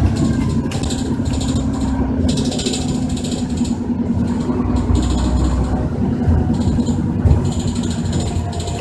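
Dennis Trident 2 double-decker bus with a Voith gearbox, heard from on board while running: a steady engine drone, with repeated short spells of high rattling and hiss.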